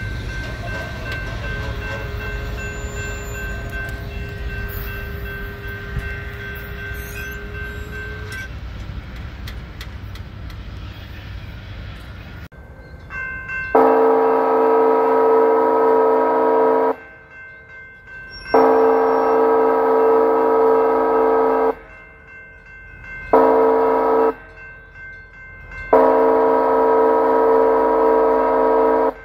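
Locomotive air horn sounding the grade-crossing signal for an approaching train: long, long, short, long, a loud multi-note chord, starting about halfway through. Before it, a low rumble fades under the steady ringing of a crossing signal bell.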